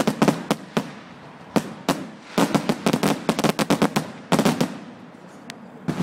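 Fireworks display: rapid bangs and crackling from bursting aerial shells, in dense clusters about two and a half seconds in and again just after four seconds, thinning out shortly before the end.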